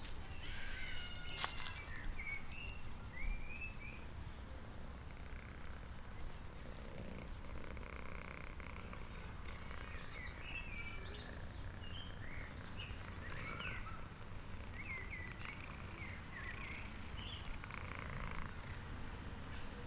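A calico cat purring steadily while being scratched under the chin and on the head, with birds chirping in the background.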